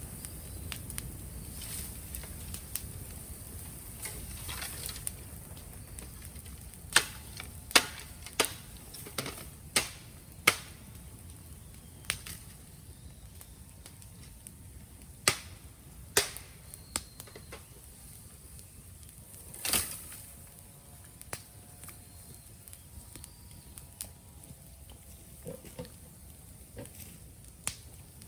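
Bonfire of raw green bamboo crackling, with sharp pops at irregular intervals and a run of loud ones about a quarter of the way in.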